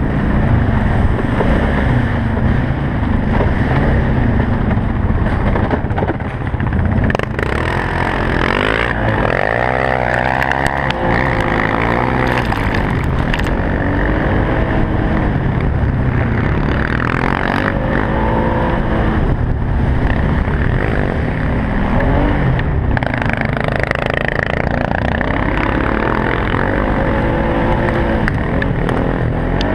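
Polaris Sportsman 570 utility quad's single-cylinder engine running hard under racing load, its revs rising and falling with the throttle, with occasional knocks from the machine over bumps.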